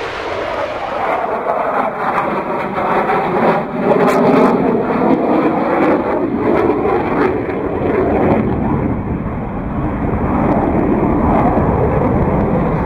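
Jet aircraft engines passing in an airshow flypast: a loud continuous rushing noise whose tone slowly sweeps and shifts as the jets go by.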